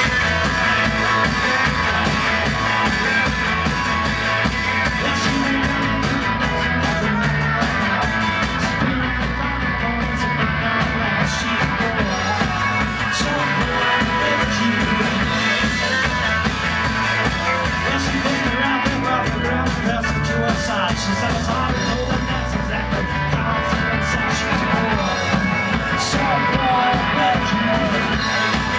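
Rock band playing live: electric guitars over a drum kit keeping a steady beat.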